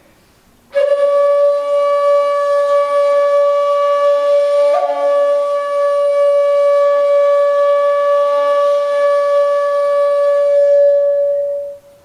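A 1.8 shakuhachi, an end-blown bamboo flute, plays one long held note. The note begins about a second in after a short silence, takes a quick ornament about five seconds in, then holds steady and fades out near the end.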